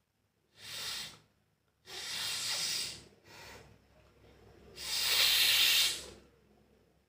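A person blowing their nose in four hard blasts: a short one, a longer one, a weaker short one, then the longest and loudest.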